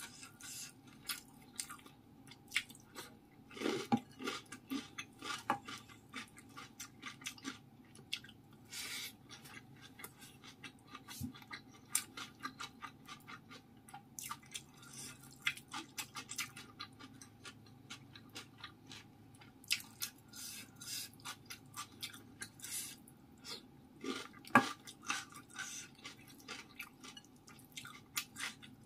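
Close-miked eating sounds: fingers squishing rice and steamed pomfret in a ceramic bowl and dabbing into sambal, with a spoon in the rice and chewing, heard as many small wet clicks and smacks. The sharpest clicks come about four seconds in and again near the end.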